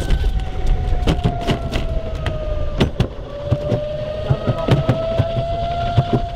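Home-made electric railway trolley running fast along the rails. The motor gives a steady whine that sags slightly and then rises again, over a low rumble, with frequent sharp clicks and knocks from the wheels on the track.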